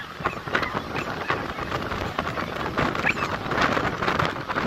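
A crowd of cold-water bathers shouting and shrieking as they splash through the waves, over the steady rush of breaking surf, with a few brief high squeals standing out.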